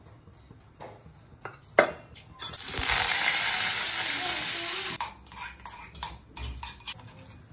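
Hot oil sizzling in an iron kadai for a tempering: a sharp clack about two seconds in, then a loud hiss for about two and a half seconds that cuts off suddenly, followed by light clinks of utensils.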